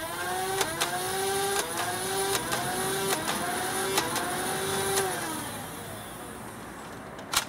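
Dart Zone Thunderbolt motorized flywheel blaster spinning up with a whine and firing a string of foam darts, about one a second, each shot a sharp click that briefly drags the flywheel pitch down. The flywheels then spin down, and a single sharp click follows near the end.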